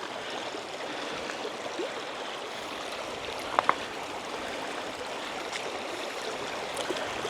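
Shallow, stony river running steadily over rocks. Two short, sharp knocks sound a little past halfway.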